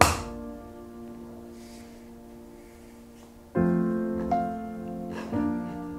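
Background piano music with slow, sustained chords and a new chord about three and a half seconds in. At the very start there is a single sharp hammer tap on the wooden box.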